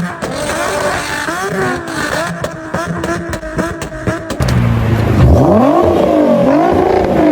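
Car engine revved in quick repeated blips, its pitch rising and falling each time; about four and a half seconds in the sound cuts to a second, louder and deeper-sounding car, also revved in repeated blips.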